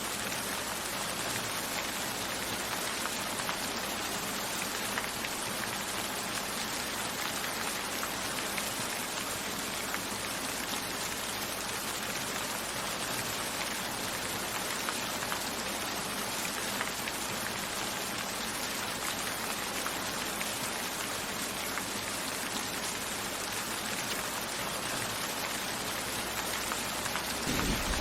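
Steady rain falling, dense with individual drops. A low rumble comes in near the end.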